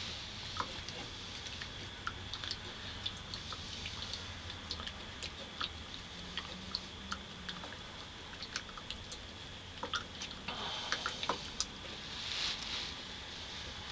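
A basswood stick stirring maple syrup into hot tea in a pot, with light, irregular clicks and taps of wood against the pot's side.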